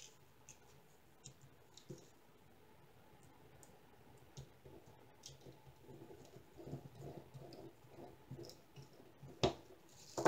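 Light clicks and taps of clear acrylic pieces being handled and fitted together while assembling a coaster holder, with one louder click near the end.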